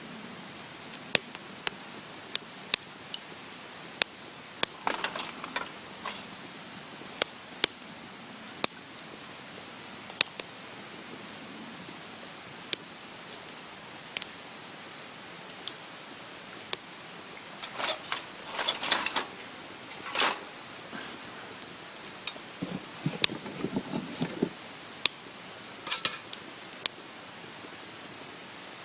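Wood campfire crackling: sharp, irregular pops and snaps over a steady hiss, with a few longer stretches of rustling or crackling about 5, 18 and 23 seconds in.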